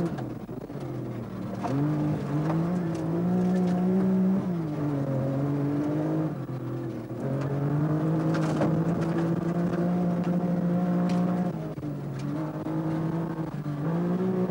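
A rally car's engine heard from inside the cabin at speed, climbing through the revs and dropping back at each gear change, several times over. A few sharp knocks cut through now and then.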